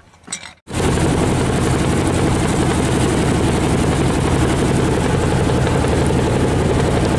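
Fishing boat's engine running under way, loud and steady with an even low pulsing, mixed with the rush of water churning in the wake. It starts abruptly just under a second in.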